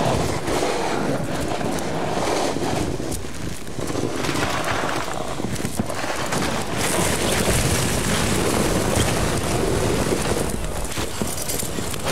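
Strong wind buffeting the microphone during a rough, high-wind hot-air balloon landing: a steady rushing rumble that turns hissier about seven seconds in.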